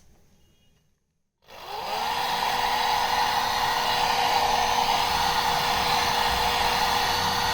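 A click, then about a second and a half in a hair dryer switches on, whines up to speed within half a second and runs steadily, likely drying the freshly bathed cat.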